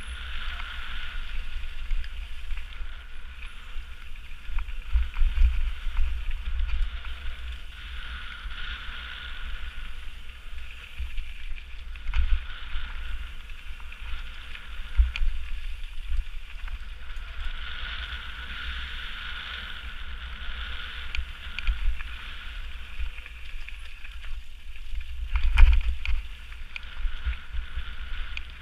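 Mountain bike riding fast down a gravel forest trail: wind rumbling over the action-camera microphone, with the hiss and rattle of tyres on gravel. Several jolts from bumps in the trail, the hardest one near the end.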